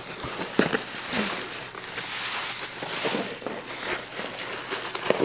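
A cardboard shipping box being opened by hand: rustling and scraping of cardboard and packing, with scattered small taps and clicks. The rustling is densest about two to three seconds in.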